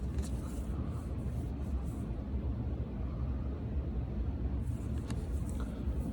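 Trading cards rustling and sliding against each other as they are leafed through by hand, in two short spells, over a steady low background rumble.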